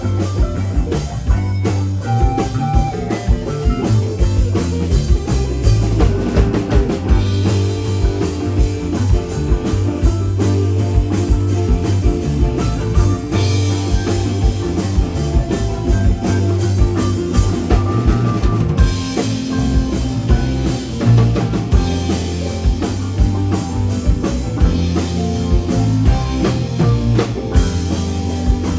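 Live rock band playing with a steady drum-kit beat: two electric guitars, an acoustic guitar, a bass guitar and keyboards.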